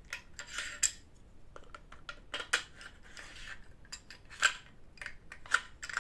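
Metal parts of a gas blowback airsoft rifle being handled and fitted back together: a string of sharp metallic clicks and clinks with some scraping between them.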